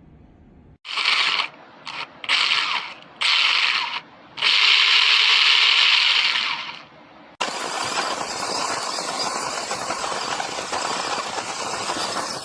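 A small brushless RC truck's motor and gears whirring in four short throttle bursts, the last one held for about two seconds. About seven seconds in, a steady, noisy whirr takes over and runs until it cuts off abruptly.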